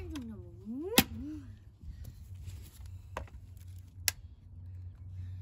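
Sharp blows striking the plastic body of a Vax Gator Pet handheld vacuum as it is smashed apart: a brief squeak, then a loud crack about a second in, followed by two lighter strikes later, over a steady low hum.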